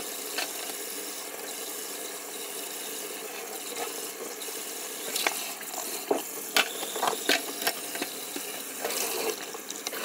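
Kitchen tap running steadily into a stainless steel sink as dishes are washed. In the second half, several sharp clinks and knocks of bowls against the sink.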